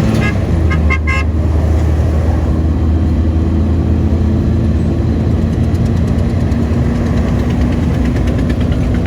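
Road traffic in a hold-up: a steady vehicle engine rumble, with a few short car-horn toots in the first second or so and a fast, regular ticking that joins in later.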